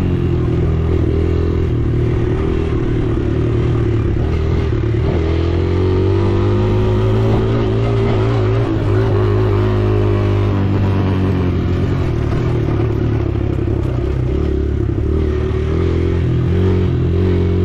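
Kawasaki KLX140R L dirt bike's small single-cylinder four-stroke engine running while being ridden, the revs rising and falling with the throttle.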